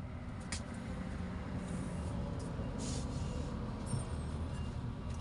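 Steady low rumble of background road traffic, with a light knock about four seconds in as an old 10-inch speaker driver is set down on the table.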